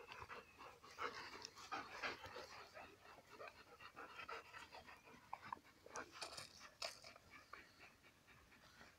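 Bernese mountain dogs panting softly, with a few faint clicks about six to seven seconds in.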